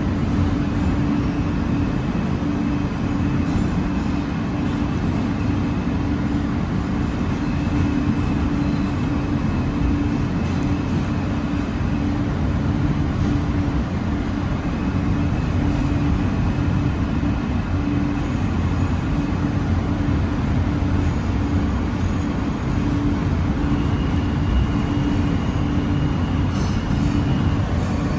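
Alstom R160A subway car running at speed through a tunnel, heard from inside the car: a steady rumble of wheels on rails with a constant hum. Faint high-pitched whines come and go throughout.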